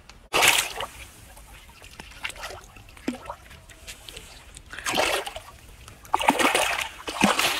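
A large fish thrashing in shallow water at the shore, its body slapping and splashing the water in bursts: one about half a second in, another around five seconds, and a longer run of splashing near the end.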